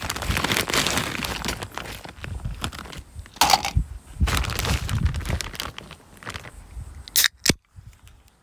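Ice cubes being handled and dropped by hand into titanium camping mugs: rustling and crunching of ice, with sharp knocks of ice against the metal, the loudest about three and a half seconds in and a quick pair near the end.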